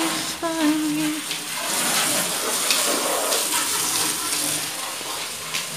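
Garden hose spraying water onto a car: a steady hiss of water spray.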